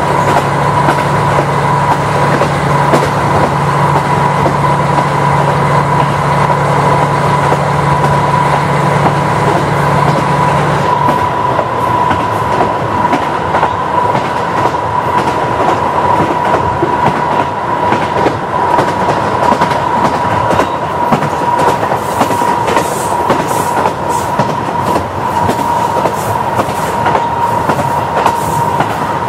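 KiHa 40 diesel railcar running at speed, heard from inside the car: a steady whine over wheels clicking across rail joints. The engine's low hum drops away about eleven seconds in, and the joint clicks grow sharper and more frequent near the end.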